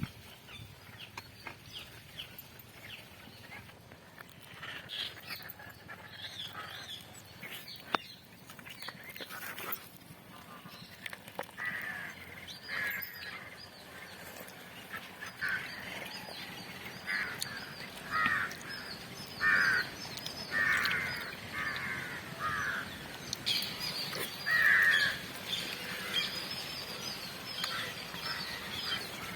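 Birds calling outdoors: many short, repeated calls, sparse at first and coming thick in the second half, with a few faint clicks among them.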